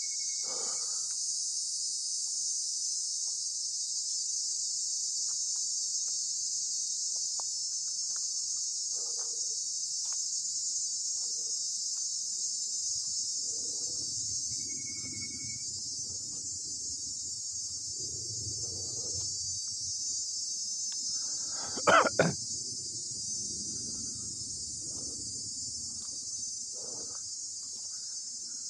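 A steady, high-pitched insect chorus in forest, with footsteps on dry leaf litter and undergrowth brushing past. A sharp double click about 22 seconds in is the loudest sound.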